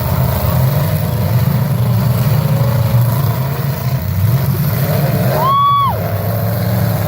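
Demolition derby car engines running and revving in a steady low rumble. About five and a half seconds in, a single high tone sounds for about half a second.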